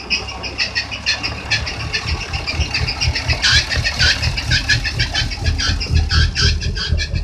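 Saviem S53 coach's engine idling: a low, even throb with a rapid ticking clatter above it.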